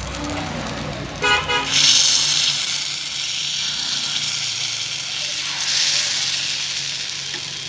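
Rice-flour batter sizzling as it is poured into the hot, oiled cavities of a pithe mould pan, loudest about two seconds in and again about six seconds in. A brief horn-like toot sounds about a second in.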